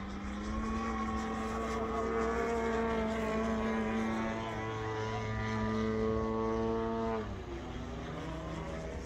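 Engine of a large 120-inch Bushmaster radio-controlled model airplane running steadily in flight, propeller droning. About seven seconds in, the engine note drops in pitch and gets quieter.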